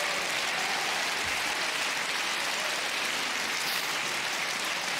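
Large theatre audience applauding, a steady wash of clapping.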